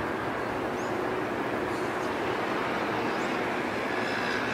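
Boeing 737 jet airliner's engines running with a steady rushing noise as it comes in to land.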